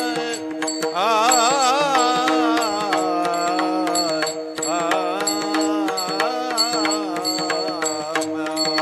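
Kirtan singing: a male voice sings a devotional melody with wavering, ornamented notes over a steady held drone, while light metallic ticks keep a regular beat.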